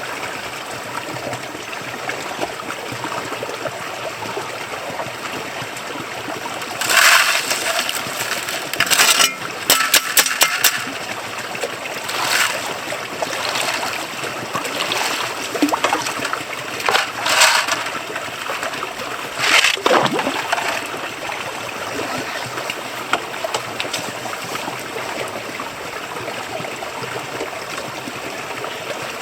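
Creek water flowing steadily, with several loud splashing, rattling bursts through the middle and a brief falling sweep about twenty seconds in.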